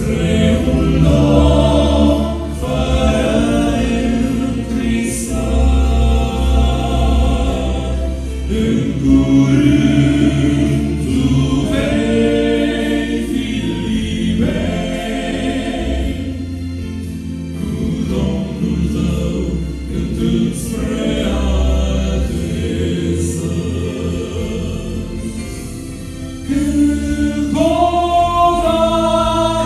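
Male vocal quartet singing a gospel song in harmony through handheld microphones and a PA, over a deep bass line. The singing swells louder near the end.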